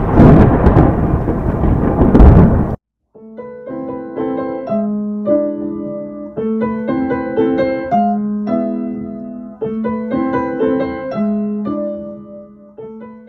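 A loud, noisy crash sound effect for a magical appearance lasts nearly three seconds and cuts off suddenly. After a short gap, background keyboard music plays a light tune of repeated notes and chords.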